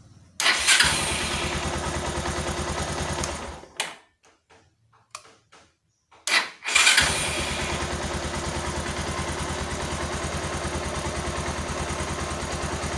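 Bajaj Pulsar 220F's single-cylinder engine electric-started on a newly fitted ESF aftermarket CDI. It catches about half a second in, runs for about three seconds and stops, then is started again a few seconds later and keeps running steadily.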